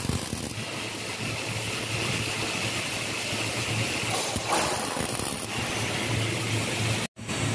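MIG welder tack-welding twisted square bars onto the flat bars of a steel grating, in short arc bursts at the start and about four and a half seconds in, over a steady low hum. The sound drops out for a moment near the end.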